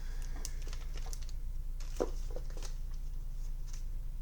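Soft rustling and a few light taps of trading cards being handled, over a steady low hum.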